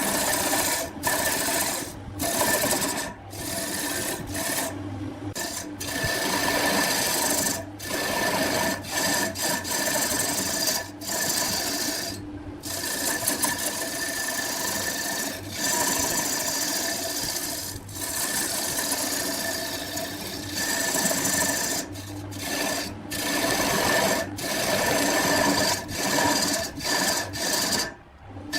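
Wood lathe running with a turning tool cutting into the spinning wood, a steady rasping scrape over the motor's hum. It is broken every second or two by short, abrupt gaps.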